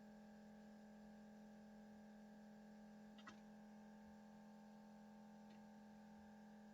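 Near silence: a steady low electrical hum, with a faint click about halfway through and a fainter one near the end.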